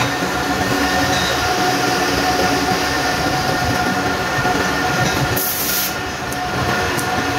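Manual metal lathe running: a steady mechanical drone with a constant gear whine, and a short hiss about five and a half seconds in.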